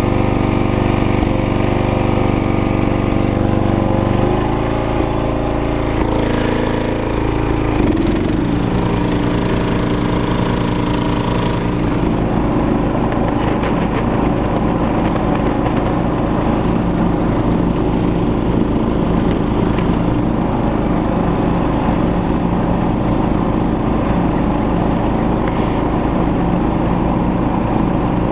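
Snapper SR1030 lawn tractor's engine running while it cuts grass. Its pitch shifts a few times in the first dozen seconds, then it runs steady.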